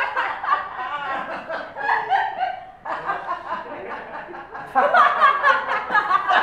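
People laughing: chuckling and snickering that dies down around the middle and comes back louder about five seconds in.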